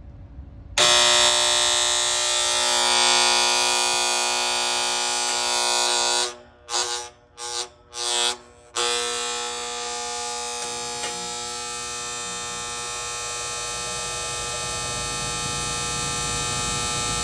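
Failing contactor in an air conditioner's outdoor unit buzzing loudly from its coil. About six seconds in it cuts out and back in several times in quick succession, chattering, then buzzes steadily again. The coil is not carrying the power well, the sign of a worn contactor.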